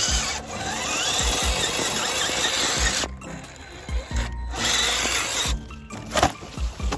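RC rock crawler's electric motor and geared drivetrain whining under load in bursts as it climbs, the pitch rising near the start. A few sharp clicks come near the end.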